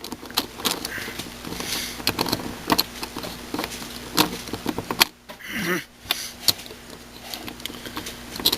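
Plastic pieces of a Meffert's 4x4 puzzle cube clicking and scraping as a layer is rotated and pieces are slid into place during reassembly: an irregular string of sharp clicks.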